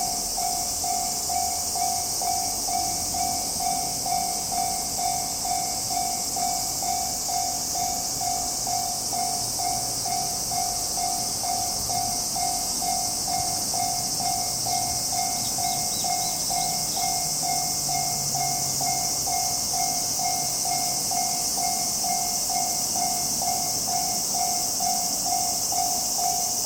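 Japanese railway level-crossing warning bell ringing steadily, an electronic clang about twice a second: the crossing is closed for an approaching train. A steady high-pitched hiss runs under it.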